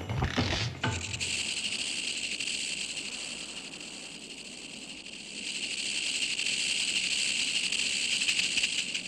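Rattlesnake's tail rattle buzzing in a steady high hiss, easing a little around the middle and then growing louder again. The tail of drum-led music is heard in the first second.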